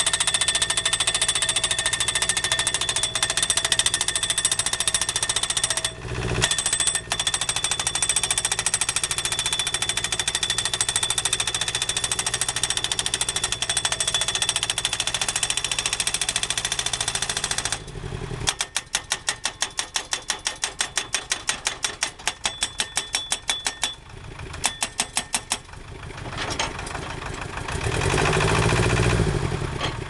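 Hydraulic guardrail pile driver hammering a steel guardrail post into the ground in rapid continuous blows, with a brief break about six seconds in. Past halfway the blows slow to separate strikes about four a second, then stop, leaving the machine's engine running and swelling briefly near the end.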